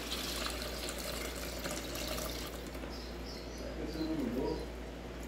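Water poured from a plastic bowl into a plastic tub, splashing: the salty soaking water being drained off pieces of dried salted fish. The pour dies away about two and a half seconds in, and a short gliding sound follows about four seconds in.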